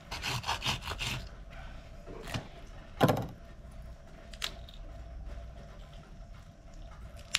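Serrated knife sawing through a grouper's collar bones in quick strokes for about a second, then a few clicks and one loud thump on the fish-cleaning table about three seconds in.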